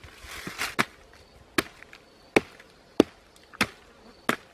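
Repeated chopping blows into a soft, decayed log, about six sharp strikes roughly two-thirds of a second apart, splitting the rotten wood open. A brief rustling tear of wood fibres comes just before the first strike.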